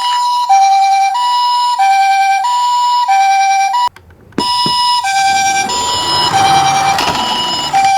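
Toy ambulance minicar's electronic siren sounding the two-tone hi-lo ambulance call, switching between a higher and a lower note about every two-thirds of a second. It stops just before halfway and starts again half a second later, with a rough rattling noise under it for a couple of seconds in the second half.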